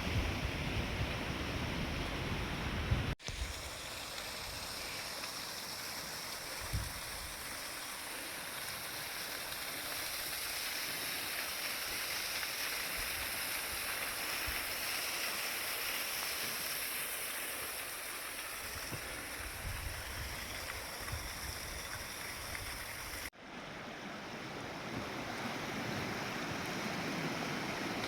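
Steady wash of sea surf with wind on the microphone, rumbling in the first seconds and again toward the end. The sound cuts off abruptly twice, about three seconds in and again about twenty-three seconds in.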